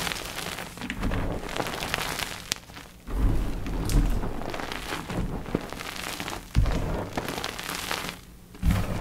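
Blocks of gym chalk being crushed, with continuous crunching and crumbling and several heavier crunches, one just before the end after a brief lull.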